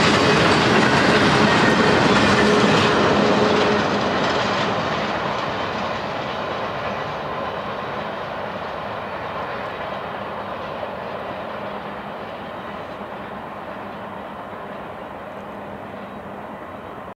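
Intermodal freight train's cars, loaded with truck trailers, rolling past with their wheels running over the rails. The sound drops about four seconds in as the last cars go by, then fades steadily as the train moves off into the distance.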